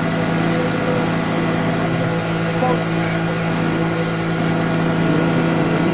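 Steady low hum with faint voices from a colour CRT TV's speaker as its channels are changed.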